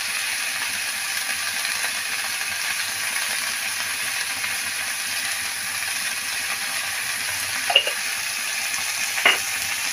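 Chopped radish greens frying in oil in a steel karahi, a steady sizzle, with two brief clicks near the end.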